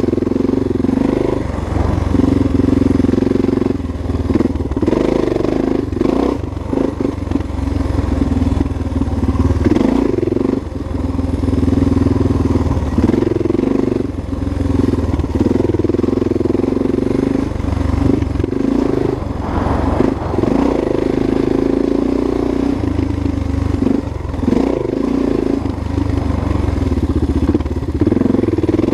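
Single-cylinder four-stroke dual-sport motorcycle engine riding a dirt trail, held at steady throttle with brief easings off and pick-ups several times.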